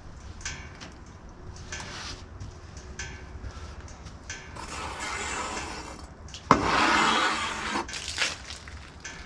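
A freshly sawn black walnut slab being handled on the portable sawmill bed: scattered knocks and rustling, with a louder, sudden scraping or brushing noise of about a second past the middle, over a low steady hum.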